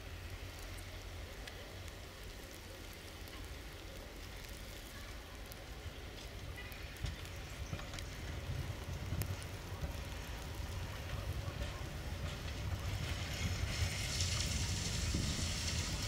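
Tram approaching on a snow-covered track: a low rumble with a hiss and scattered clicks grows steadily louder. A bright hiss comes in over the last few seconds as the tram draws close.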